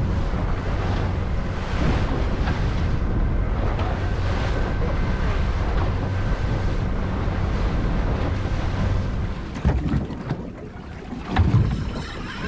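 Yamaha outboard on a 4.9 m Coast Runner runs at speed through chop, with wind buffeting the microphone and the hull throwing spray. About nine and a half seconds in this cuts off to a quieter scene with a few sharp knocks.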